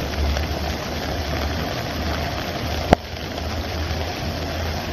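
Muddy floodwater rushing in a steady torrent through a flooded street, with a low wind rumble on the microphone. A sharp click about three seconds in, after which the sound is slightly quieter.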